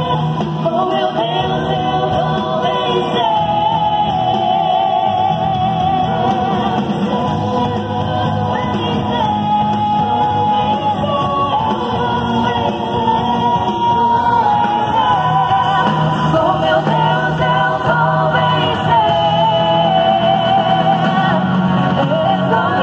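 Live gospel worship music over a PA in a large hall: a woman singing lead in Portuguese with vibrato, backed by guitars, bass and drums.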